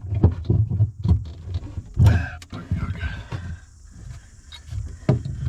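A man grunting and straining in short repeated efforts, with sharp metal knocks, as he wrenches at a seized through-hull fitting.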